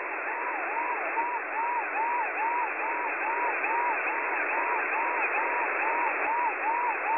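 Vietnamese siren jammer received on shortwave at 13715 kHz: a mid-pitched tone that swoops up and down about three times a second, over a steady hiss of static. It is heard through a receiver in sideband mode, so it sounds thin and narrow. The deliberate jamming signal is likely aimed at Radio Free Asia's broadcasts on that frequency.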